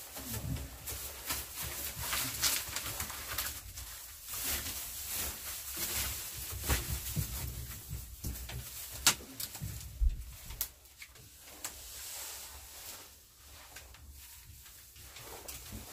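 Puppies eating from a metal feeding pan and stepping in straw bedding: irregular crunching and sharp clicks with rustling straw, one louder click about nine seconds in.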